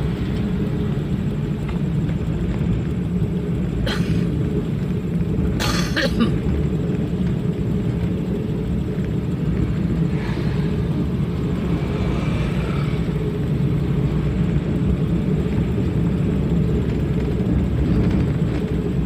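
Steady low rumble of a public-transport minibus engine and road noise while driving, with two short bursts of noise about four and six seconds in.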